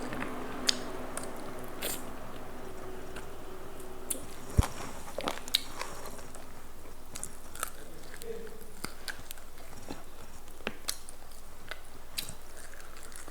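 A person biting and chewing food, with irregular sharp crunching clicks over a low steady background.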